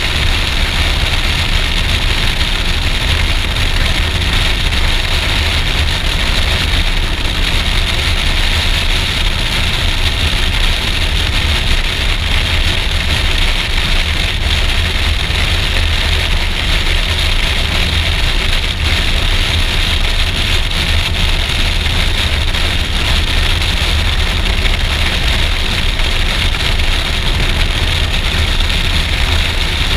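Steady rush of wind buffeting a helmet-mounted camera on a Suzuki V-Strom DL650XT cruising at road speed, with the motorcycle's V-twin engine running evenly underneath. The sound is constant, with no gear changes or sudden sounds.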